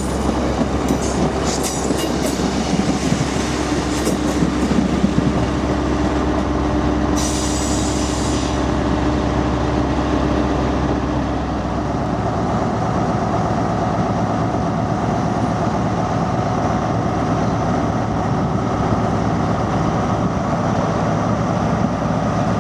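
Class 153 diesel railcar moving slowly, its underfloor diesel engine running, with a few brief squeals from the wheels on the rails, the longest about seven seconds in. From about twelve seconds in, the diesel engine of an HST power car runs steadily in its place.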